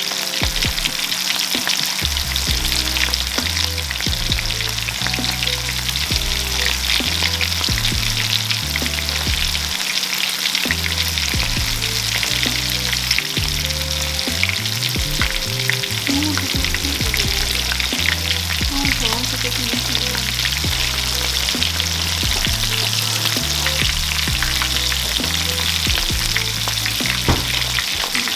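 Cornmeal-battered bluegill fillets deep-frying in hot oil in a pan: a steady, dense sizzle full of fine crackling pops.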